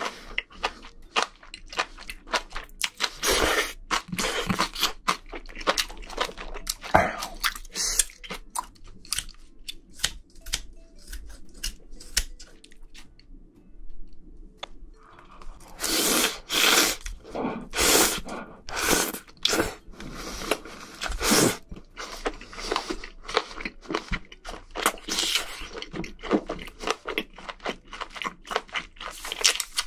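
Close-miked chewing and crunching of spicy braised seafood with octopus and bean sprouts, a rapid run of short wet crunches. The chewing goes quieter a little before half way, then comes back with a run of louder crunches.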